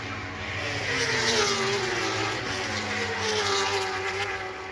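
Racing motorcycles passing at speed, their engine notes falling in pitch twice as they go by.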